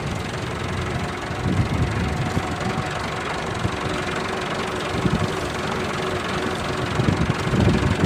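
Massey Ferguson tractor's diesel engine running steadily as it pulls a tine cultivator through the soil.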